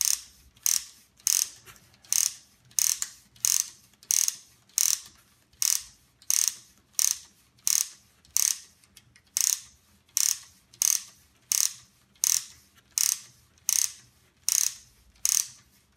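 Wooden ratchet of a Ugears Truck UGM-11 plywood model clicking as its roof-top winding lever is pumped back and forth, winding the rubber-band motor. A steady run of sharp clicks, a little under two a second. This clicking is the normal sound of winding.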